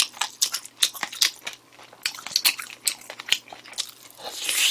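Close-miked eating sounds: a quick run of sharp crunches and mouth clicks as food is bitten and chewed.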